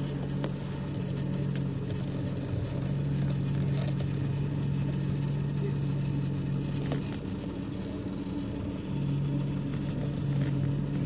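Audi A6 C6 power steering making a steady low hum, the strange noise from its hydraulic steering system. The hum dips for a moment, drops away about seven seconds in, and returns a couple of seconds later.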